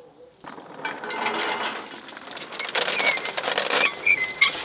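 Hand-cranked coffee pulping machine turning, with coffee cherries rattling and clattering through it; the rattle starts about half a second in and goes on as a dense run of small clicks, with a few short squeaks near the end.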